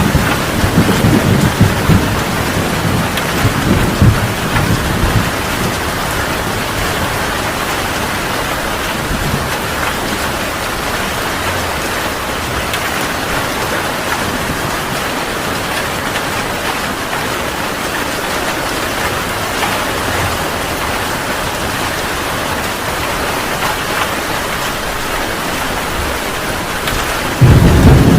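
Heavy rain falling steadily during a thunderstorm. Thunder rumbles through the first few seconds and dies away, and a sudden loud rumble of thunder breaks in near the end.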